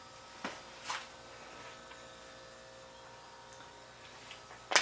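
Steady electrical hum, with a few faint ticks and a sharper click near the end.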